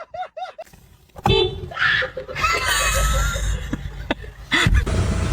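A person laughing in short repeated bursts, then about a second in a loud low rumbling noise takes over.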